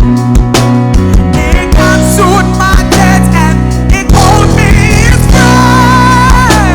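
Live worship band music: a steady drum beat over sustained bass notes, with a wavering lead melody on top.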